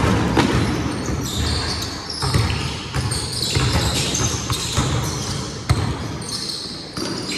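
Basketball being dribbled and bounced on a hardwood gym floor in irregular thumps, with short high squeaks of sneakers on the court during a pickup game.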